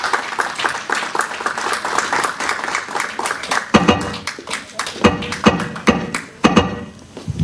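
Audience clapping and applauding. A little under four seconds in, music with a steady beat starts.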